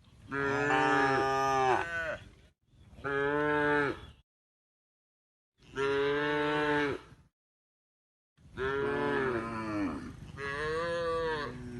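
Cows mooing: a series of about five long, drawn-out moos, each bending in pitch, separated by gaps of complete silence.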